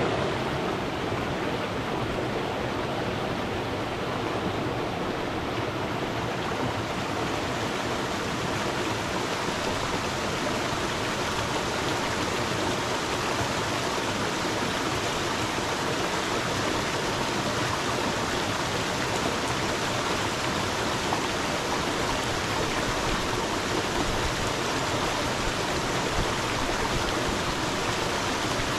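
Stream of water flowing steadily, a continuous rushing and splashing.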